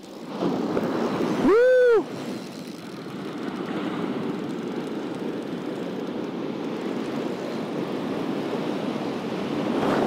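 Steady whirring rush of surf and of line running off a surfcasting spinning reel's drag as a hooked tope shark runs. A short, loud shout rises and falls in pitch about a second and a half in.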